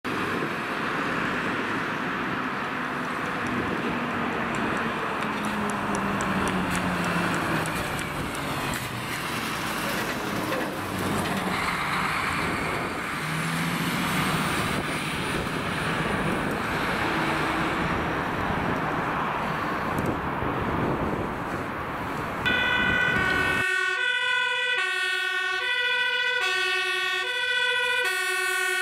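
Heavy fire appliance passing at speed, a broad rush of engine and road noise, then from about 22 seconds in a fire engine's two-tone siren sounds loud and close, alternating between two pitches, each held about half a second.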